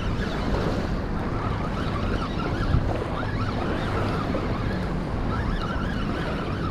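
Wind buffeting the microphone over the steady wash of small waves lapping at the shoreline.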